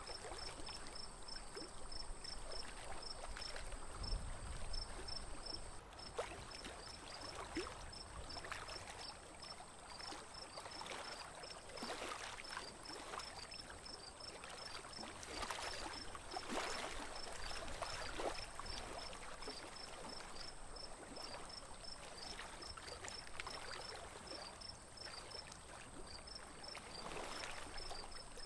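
Water lapping and trickling against a small wooden boat as it is poled through a lily-covered lake, with a few louder splashes. A faint high chirp repeats about three times a second throughout.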